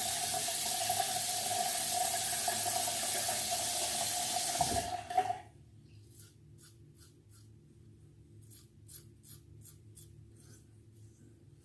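Bathroom tap running, shut off about five seconds in with a thump. Then a run of short, faint scraping strokes, two or three a second, from a Feather Artist Club SS straight razor shaving stubble.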